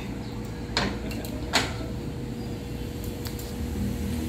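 Two sharp clanks of steel members being handled, about a second in and again half a second later, with a few lighter knocks after, over a steady engine drone.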